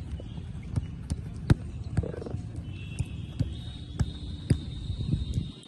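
Footballs being kicked in a passing drill: sharp thuds at irregular intervals, several balls struck in quick succession.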